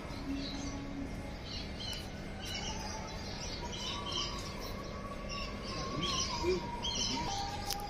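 Small birds chirping in quick, irregular calls, busier in the second half, with a faint drawn-out wavering tone in the background.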